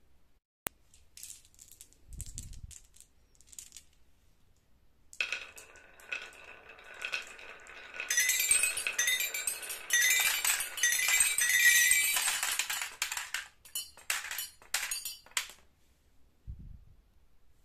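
Marbles rolling and rattling down a wavy wooden track, then tumbling over a toy xylophone's colored metal bars so that its notes ring in a quick jumble among the clicks and clinks. It starts about five seconds in, is loudest in the middle, and thins out to a few last clicks as the marbles settle in the toy truck's bin.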